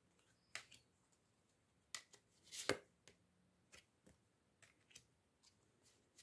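Tarot cards being drawn from the deck and laid down on the spread: a few soft card flicks and slaps, the loudest a little under three seconds in, between stretches of near silence.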